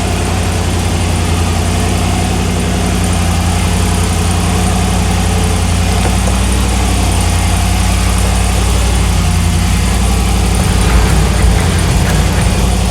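4x4 engine running steadily at low revs, getting louder and rougher about eleven seconds in.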